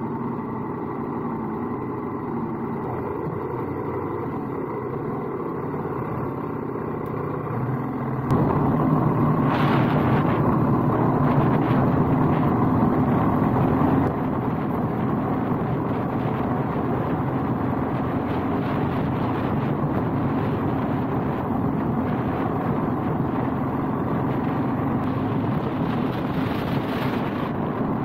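KTM 790 Adventure's parallel-twin engine idling steadily, then about eight seconds in pulling away and running under load, with tyre and gravel noise; it is loudest for several seconds after setting off, then settles to a steady ride.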